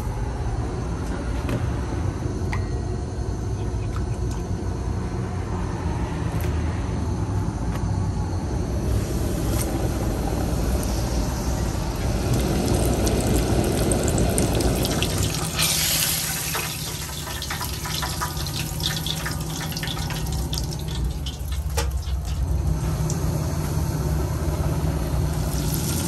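Chicken pieces deep-frying in a pot of hot oil: a sizzling hiss that sets in about a third of the way in and grows louder, with dense crackling and popping in the second half, over a low steady hum.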